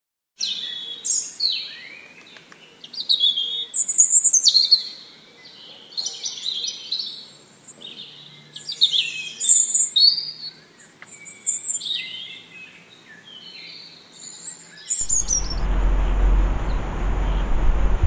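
Songbird song: a busy run of varied, high, quick chirping phrases with sliding notes. About fifteen seconds in it cuts to wind buffeting the microphone.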